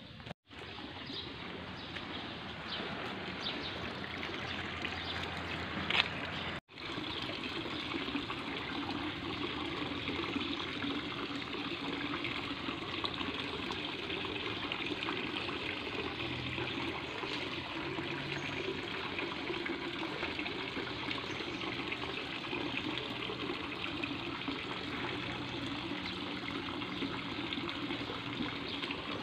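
Shallow stream running over stones, a steady trickle of water. The sound drops out for a moment just after the start and again about seven seconds in.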